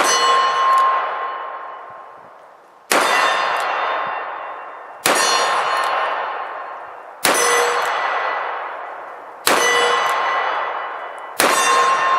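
Six sharp metallic clangs, about two seconds apart, each left to ring down: steel targets hit in turn, most likely a full cylinder from a six-shot revolver.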